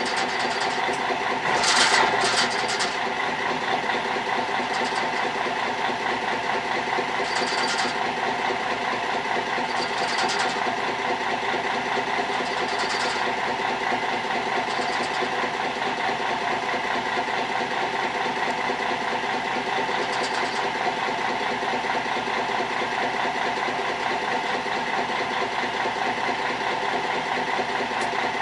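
Fishing boat's engine running steadily at low speed, a constant hum, with a few brief rattles over it.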